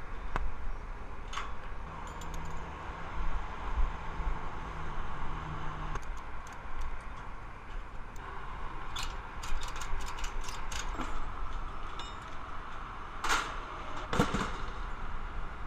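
Wind buffeting a body-worn action camera high on a billboard, under scattered clicks and taps from hands working the billboard's vinyl face and metal frame, with a cluster of sharp clicks midway and two louder knocks near the end.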